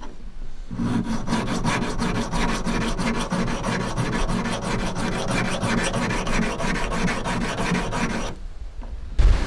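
A hand file scraping back and forth over a broadhead's blade in rapid, even strokes, about five a second, as the broadhead is sharpened. The strokes stop about eight seconds in.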